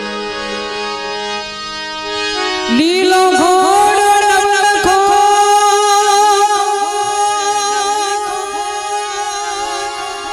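Instrumental interlude of a Gujarati devotional bhajan. Steady held notes with a reedy tone, then about three seconds in a louder melody enters, its notes sliding up into pitch, over light percussion.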